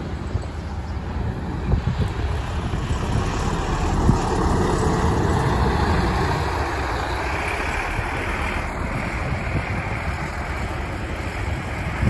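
A bus driving past, its engine and tyre noise swelling a few seconds in and then slowly fading, with wind buffeting the microphone.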